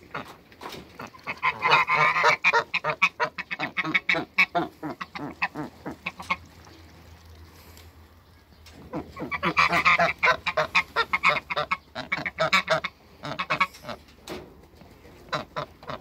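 Domestic geese honking in two long bouts of rapid, repeated calls: the first from about a second in to about six seconds, the second from about nine to fourteen seconds, with a few more calls near the end.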